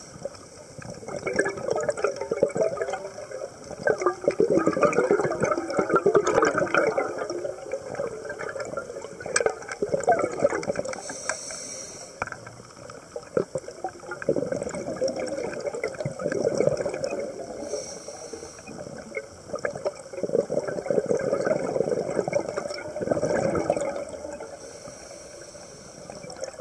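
Scuba diver breathing through a regulator underwater: surges of exhaled bubbles lasting a few seconds each, with a short hiss of inhalation between them three times.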